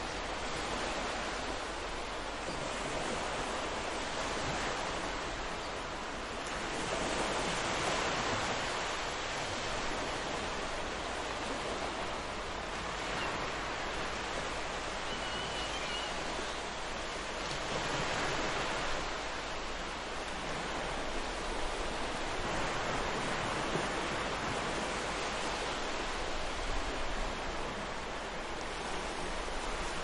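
Ocean surf washing onto a beach: a steady hiss of water that swells as a wave breaks, about every ten seconds.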